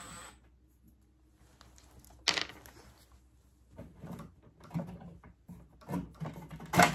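Plastic fan grille of a ceiling cassette air conditioner being worked loose by hand: a sharp plastic snap about two seconds in, scattered soft knocks and rattles, then a louder snap near the end.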